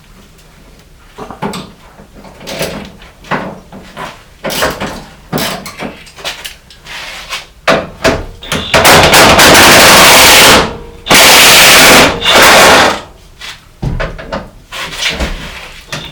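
Tools and metal parts knocking and clanking in a truck's engine bay, a string of short knocks and clicks. About halfway through come two loud bursts of hissing noise, each about two seconds long, followed by a few more knocks.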